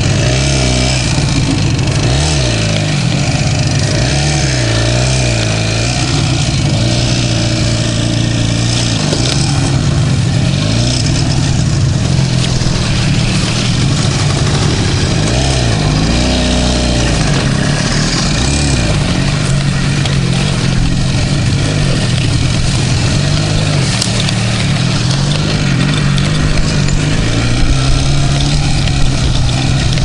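Soviet IZh two-stroke motorcycle engine running while riding off-road, its pitch rising and falling as the throttle opens and closes.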